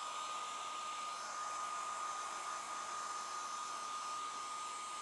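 Handheld electric hair dryer running steadily: an even rush of air with a steady high whine.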